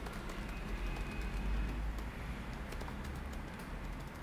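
Faint, scattered clicks of a computer keyboard and mouse over a low, steady background rumble.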